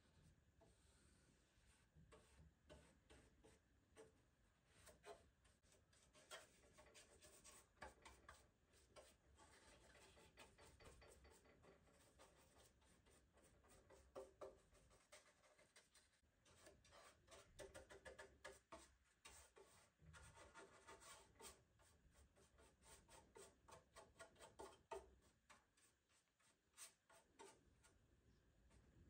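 Faint, irregular scratchy strokes of a small paintbrush dabbing and brushing paint onto the bare metal inner panel of a car tailgate.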